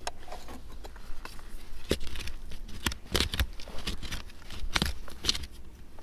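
Hand digging in gravelly privy soil: irregular scrapes and sharp clicks of dirt and small stones being raked away from a buried glass bottle, with a cluster of clicks around the middle.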